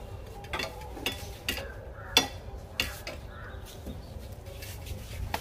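Metal snake tongs clinking and scraping against a shrine's iron grille in a handful of sharp knocks, the loudest a little over two seconds in, as a cobra coiled around the bars is worked loose.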